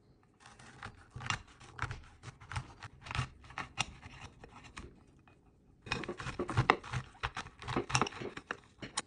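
Kitchen knife cutting through the tough rind of a pomegranate: a rapid run of small snaps and scrapes, stopping for about a second midway before a second cut begins.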